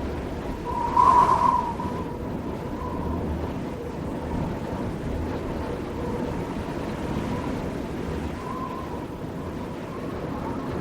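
Heavy wind blowing with a thin whistling tone, gusting louder about a second in.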